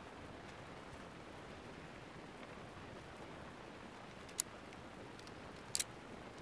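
Steady hiss of a quiet hall, with one sharp short click a little past four seconds in and a quick double click near the end.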